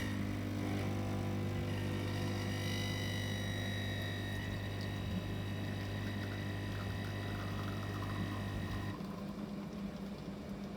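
De'Longhi espresso machine's pump running steadily as it pulls a single shot of espresso, a low hum with a higher whine over it, stopping about nine seconds in when the automatic shot finishes.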